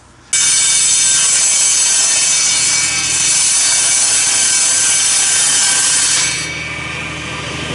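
Table saw ripping a sheet of 6 mm plywood: a loud, steady cutting noise over the motor's hum, beginning abruptly. A little over six seconds in, the blade clears the wood and the saw runs on unloaded, quieter.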